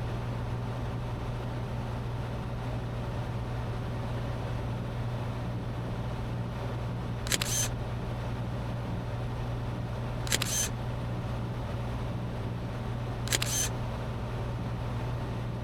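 Cessna 182T's engine and propeller making a steady low drone in the cabin. Three short, sharp clicks come about three seconds apart in the second half.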